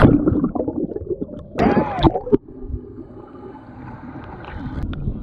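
Water in a wave pool heard from under the surface: a muffled low rumble of moving water, with a brief gurgle about two seconds in. The sound turns muffled suddenly at the start as the camera goes under.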